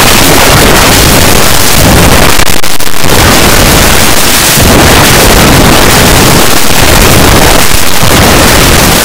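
A song boosted far past the point of clipping, an 'earrape' edit, so that it comes out as a constant wall of harsh, extremely loud distortion covering every pitch, with no clear tune or words left.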